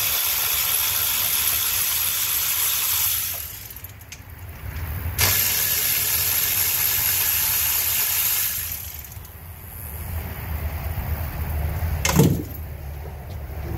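Two long, steady hisses of pressurised spray, each lasting three to four seconds, the second starting about five seconds in. One sharp knock comes near the end.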